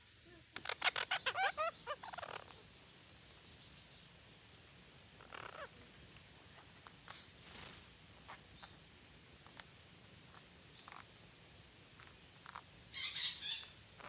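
Red-breasted parakeets calling: a loud, rapid run of repeated harsh calls about a second in, then scattered single calls, and another burst of calls near the end.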